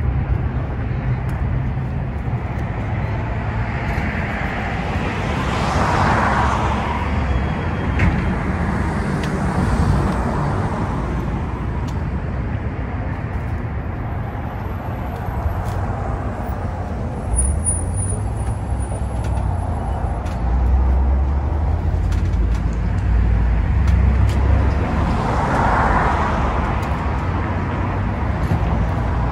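Steady road traffic noise, with vehicles swelling past about six seconds in and again near the end.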